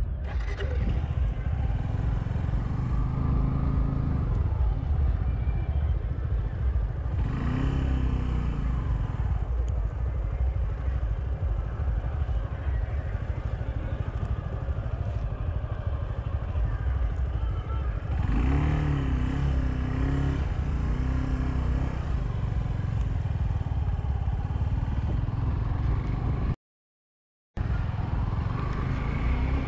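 Motorcycle engine running with a heavy low rumble, its pitch rising and falling a few times as the throttle is opened and eased. The sound drops out for about a second near the end.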